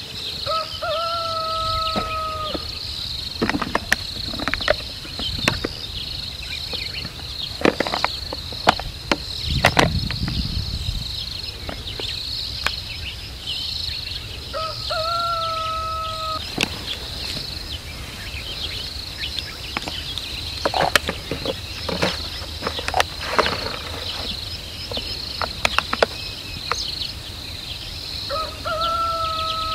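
Insects trilling in a steady, rapidly pulsing high chorus, with scattered sharp crackles and clicks from a lioness biting and pawing a plastic bottle. A flat, held, whistle-like tone of about a second and a half sounds three times, roughly fourteen seconds apart.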